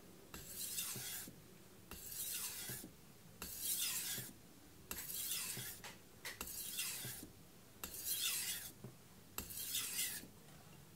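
Aogami #2 carbon-steel knife blade drawn in full-length strokes across a Naniwa Pro 1000-grit whetstone, after a burr has been raised on both sides. There are seven rasping strokes, about one every second and a half; each starts with a light click and slides down in pitch.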